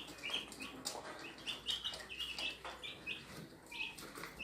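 A brood of three-day-old white broiler chicks peeping continuously, many short high calls overlapping several times a second.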